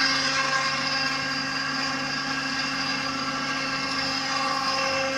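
CNC router spindle running at high speed and milling 8 mm PVC plastic sheet: a steady whine made of several constant tones over the hiss of the cutter.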